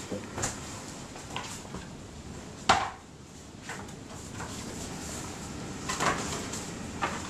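A hardcover sketchbook handled on a wooden desk: small taps and rustles, a sharp knock a little under three seconds in, then the book opened and its pages flipped near the end.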